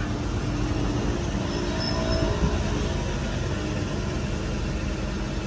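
Steady low rumble of motor vehicles, with a faint engine hum held through the middle.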